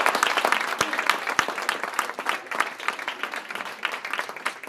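Audience applauding: a dense run of many people's claps that fades a little toward the end.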